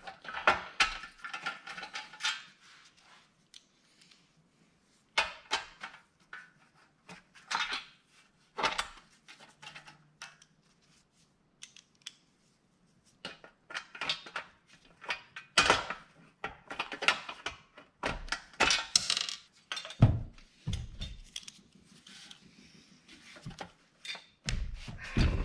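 Irregular metallic clinks, taps and rattles of a screwdriver and screws against a small diesel engine's metal fan shroud as the shroud is fitted and its screws are started loosely. A few duller thumps come near the end as the shroud is lifted and repositioned.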